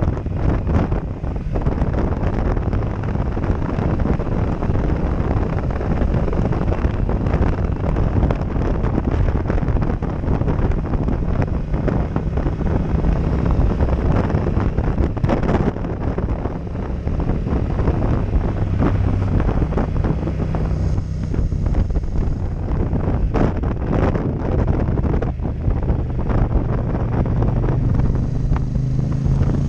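Motorcycle riding at speed, its engine running under heavy wind noise buffeting the camera microphone. Near the end the engine revs rise in pitch.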